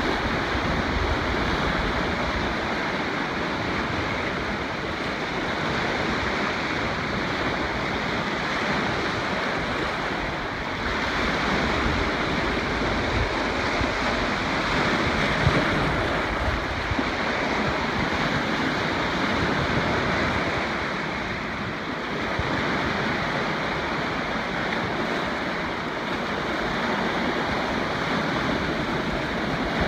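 Waves on a large lake breaking around boulders and washing onto a stony shore, a continuous surf rush that swells and eases every few seconds. Wind rumbles on the microphone underneath.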